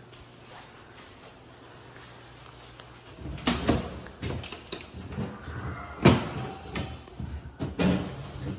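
Kitchen wall-cabinet doors being opened and shut by hand: a series of knocks and clicks that starts about three seconds in, the loudest knock about six seconds in.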